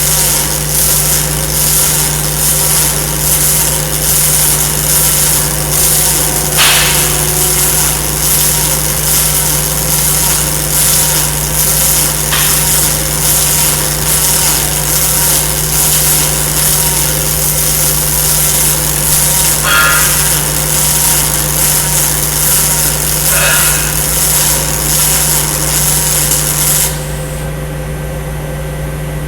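Pulsed MIG welding arc on aluminium, from a Miller Aluma-Pro gun on an Invision 450MPa in profile-pulse mode: a loud, steady crackling hiss with a few sharper pops. It cuts off about 27 seconds in as the weld ends, leaving a steady hum.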